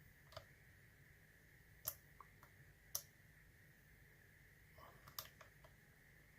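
Faint, sparse clicks of a lock pick and tension wrench working the pins inside a Yale 840 series padlock, with two sharper clicks about two and three seconds in.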